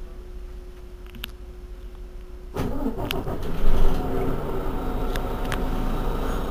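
Mercedes-Benz Citaro G articulated bus diesel engine: a quiet steady hum with a held tone, then a sharp rise in engine sound about two and a half seconds in. It peaks briefly about a second later and then runs on steadily.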